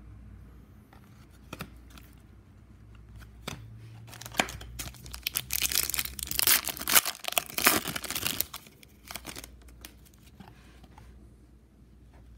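A foil trading-card pack wrapper being torn open and crinkled, a dense crackling lasting about four seconds in the middle, with light clicks of cards being handled before and after.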